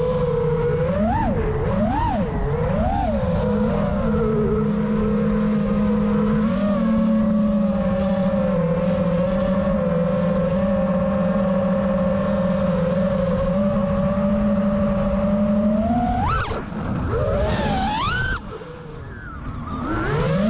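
FPV racing quadcopter's brushless motors whining, with three quick throttle blips that swing the pitch up and down. The whine then holds a steady tone for about twelve seconds, climbs sharply twice near the end, drops away briefly and rises again.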